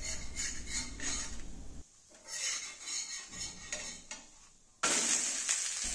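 Metal spatula scraping and tapping against an iron tawa as it loosens a cooking rice-flour pitha, with faint sizzling underneath. The sound drops out briefly twice, and a steady sizzling hiss comes in near the end.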